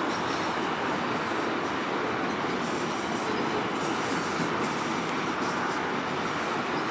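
Autorack freight cars of a Canadian Pacific train rolling past, with a steady wheel-on-rail noise.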